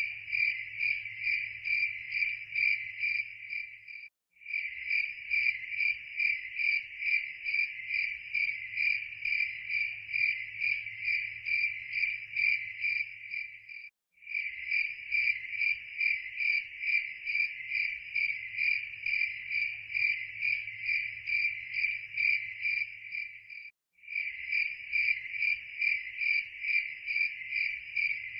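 Crickets chirping: a steady, high, pulsing chirp at a few pulses a second. It cuts out for a moment three times, about every ten seconds.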